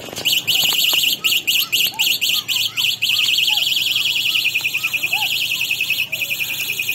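Electronic horn sounding a rapid, high-pitched warbling beep, pressed in short bursts at first and then held steadily before it cuts off abruptly.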